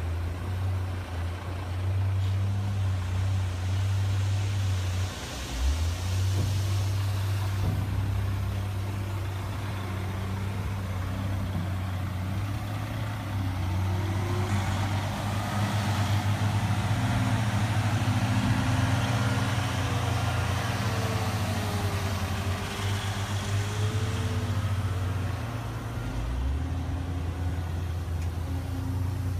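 Western Star truck's diesel engine running steadily at low revs, with a brief dip about five seconds in and small shifts in engine speed later on.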